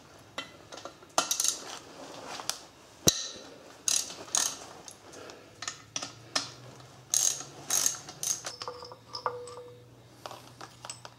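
Hand ratchet clicking in short, irregular runs while the two E10 external-Torx bolts of a thermostat housing are backed out of an aluminum cylinder head, with sharp metal clinks of tool and parts between runs.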